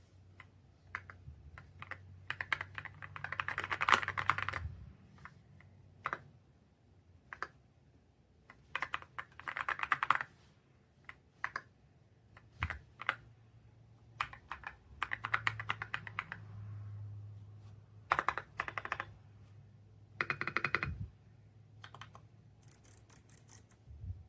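Typing on a YUNZII X98 mechanical keyboard with pre-lubed switches: several quick flurries of keystrokes with scattered single key presses between them.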